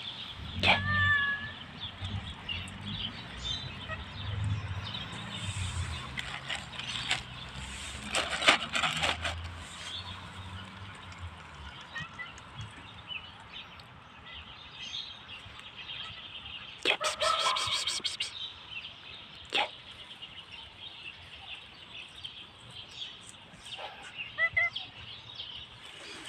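Domestic cat meowing a few short times, spread out, with quieter stretches in between.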